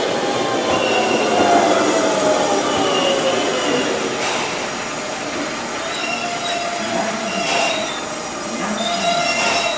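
Tobu 100 series Spacia train rolling slowly along the platform. Its drive whine falls in pitch as the train slows, and high wheel and brake squeal comes in during the second half, with a few short hisses.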